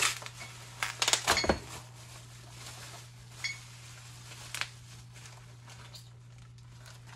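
Clear plastic bag crinkling as it is handled and opened, with small metal gun parts clinking inside; a cluster of sharp clinks about a second in, a couple of single clinks later, and quieter handling toward the end.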